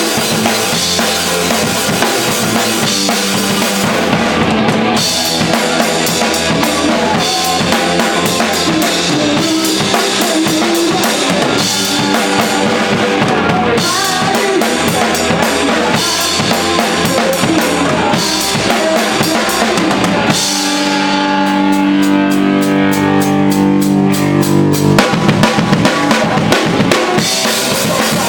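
A rock band playing live, with the drum kit prominent: bass drum, snare and cymbals under guitars. About two-thirds of the way through, a long chord is held for a few seconds, then a burst of loud drum hits leads back into the full beat.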